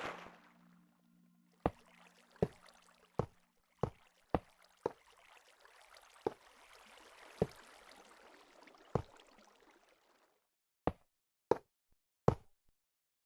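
A series of single sharp knocks at uneven spacing, about one every half second to second and a half, over a faint steady hiss that cuts off about ten seconds in.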